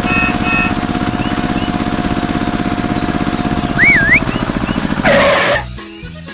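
Small engine of a mini truck running with a fast, even chug and a steady whine above it, with high chirps over it. Just past five seconds in there is a short noisy burst, the engine sound stops, and music takes over.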